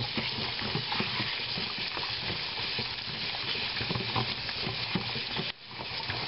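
Kitchen faucet running onto pork pieces in a plastic colander, with splashing and light knocks as a hand rubs and turns the meat under the stream. The water noise drops out for an instant near the end.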